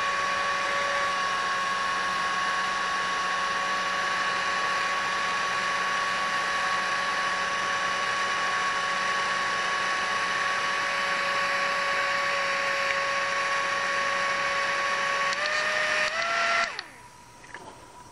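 The small drone-type motor of a USB rechargeable handheld bladeless fan running fast inside its housing: a steady high whine over a loud rush of air. Near the end the whine steps up in pitch twice, then stops.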